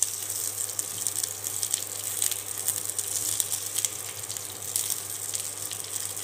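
Drumstick (moringa) pieces, dried red chillies and curry leaves frying in hot oil in a kadai: a steady sizzle with scattered crackles.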